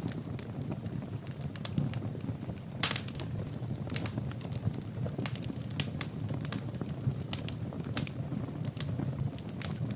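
Wood fire burning in a fireplace: a steady low rush of flames with irregular sharp crackles and pops, several a second, one louder pop about three seconds in.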